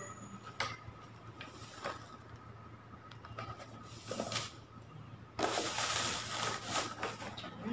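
Handling of a cardboard box with a few light clicks and knocks, then clear plastic wrapping crinkling for about two seconds near the end.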